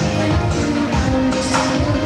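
Zouk dance music with a steady beat and held melody lines.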